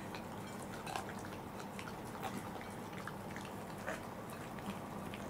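Two Welsh corgis eating watermelon off plates: wet licking and chewing, with scattered small clicks of tongue and teeth on the plates, over a faint steady low hum.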